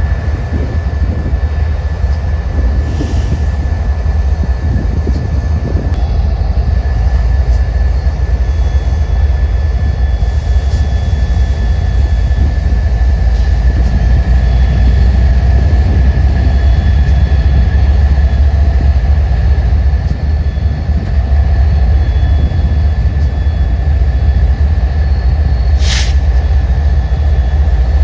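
A train running past with a steady heavy rumble and a thin steady whine above it. A single sharp click comes near the end.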